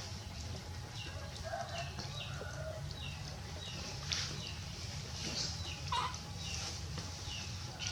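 A small animal's short, high-pitched chirping calls, each falling in pitch, repeated about twice a second over a steady low hum.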